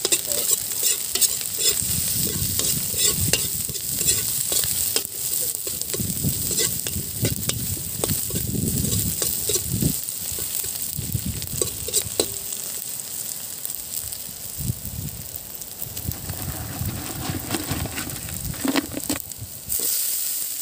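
Chopped garlic, onion and ginger sizzling in hot oil in a wide metal wok, with a metal ladle scraping and clinking against the pan as it stirs. Near the end the sizzle jumps louder as the catch of kuray goes into the wok.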